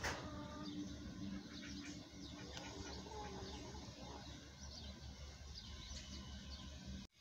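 Faint birdsong outdoors: many short, quick chirps from small birds over a low steady hum.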